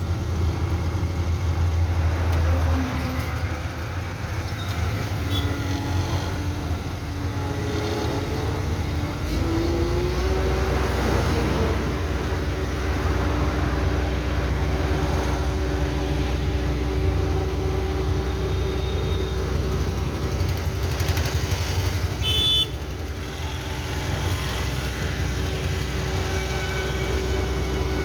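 A vehicle engine running with a low rumble; about ten seconds in its pitch rises as it speeds up, then holds steady. A brief sharp knock sounds a little past twenty seconds in.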